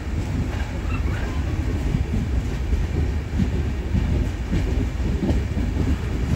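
Express passenger train running on the rails, heard from on board: a steady low rumble from the coaches and wheels with irregular low knocks.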